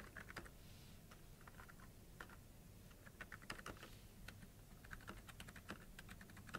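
Faint typing on a computer keyboard: short, irregular runs of keystrokes with pauses between them.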